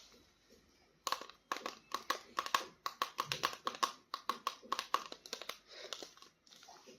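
Crinkly plastic packaging rustling and clicking in the hands as a small action figure is unboxed. There are rapid, irregular crackles from about a second in, thinning out near the end.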